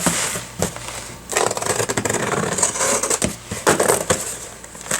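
Cardboard packaging being opened and handled: irregular rustling, scraping and crinkling with short clicks as an inner box is pulled open.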